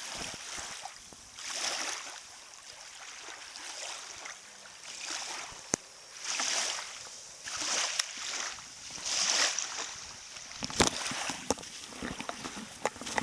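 Small waves lapping at a lake shore, a rush of water every second or so, with a few sharp clicks.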